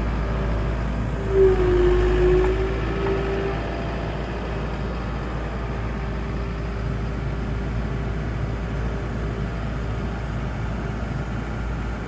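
New Holland skid steer's diesel engine running as the machine drives forward, with a steady whine over a low rumble. The whine briefly gets louder and dips in pitch about a second and a half in, then holds steady.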